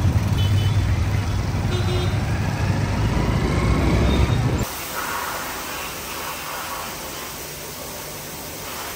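Motor vehicle engine and road noise, a steady low drone; a little under halfway through it cuts suddenly to a quieter, even hum.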